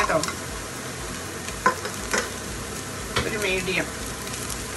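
Chopped onions, garlic-ginger paste and green chillies sizzling in butter and oil in a frying pan, stirred with a spatula that scrapes the pan a few times.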